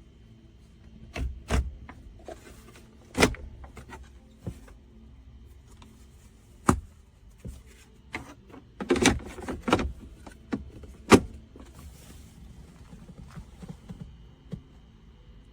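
Irregular knocks and clicks from something being handled. The sharpest come about three seconds in, and the loudest about eleven seconds in, with a quick cluster of them just before.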